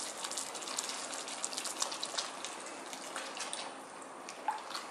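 Coconut milk pouring in a stream from a carton into a hot wok of curry sauce, over the fine crackle of the sauce sizzling; the crackling thins out about three and a half seconds in.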